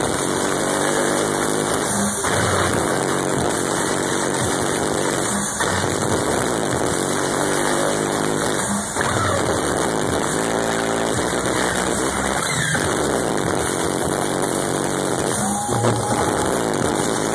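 Loud, bass-heavy electronic dance music from a live DJ set through a concert sound system. The track repeats a phrase that restarts about every three and a half seconds, with rising synth sweeps.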